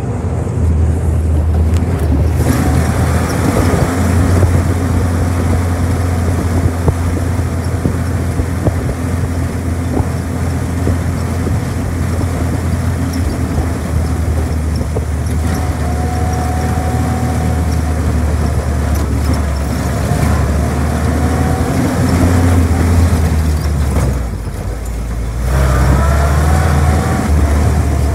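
Old military jeep's engine running steadily under way on a dirt track, heard from inside the open vehicle, with road and wind noise over a deep drone. Near the end the engine note drops for about a second, then picks up again.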